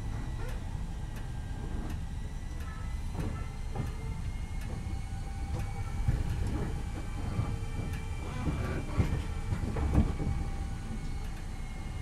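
Toyama Chihō Railway 10020 series resistance-control electric train running between stations, heard from inside the car. Its ex-Eidan 3000 series running gear gives a high-pitched whine over a steady rumble, and the wheels click over rail joints, with a couple of louder knocks about nine and ten seconds in.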